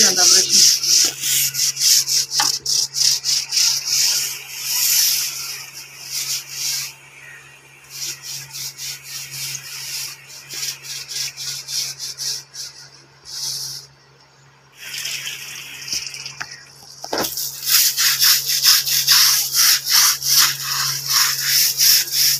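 A stiff hand scrub brush scrubbing the woven cord webbing of a charpai (string cot) with detergent, in fast back-and-forth scraping strokes of about three or four a second. The strokes stop briefly a few times, the longest pause about two-thirds of the way through.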